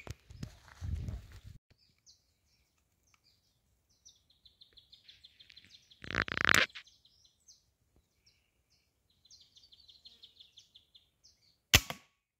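A single sharp crack of the Fox GR1600 rifle firing near the end, with a short ring-out. Before it, a small bird's trill of rapid high notes comes twice, broken about six seconds in by a loud, rough half-second noise.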